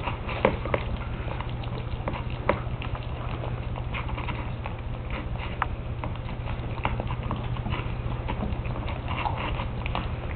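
West Highland White Terrier puppies eating from a shallow plastic dish: a run of irregular small clicks, taps and smacks of mouths and food against the plastic, over a steady low hum.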